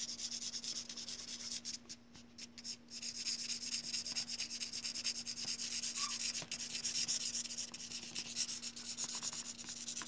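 Rapid back-and-forth scribbling of a colouring stick on paper, a dry rubbing that goes on with a short pause about two seconds in. A faint steady hum lies underneath.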